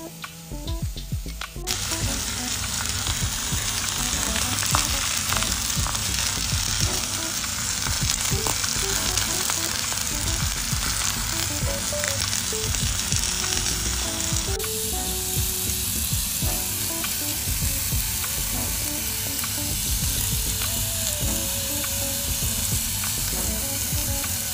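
Beef steak searing on a ridged grill pan, a steady sizzle that starts suddenly about two seconds in.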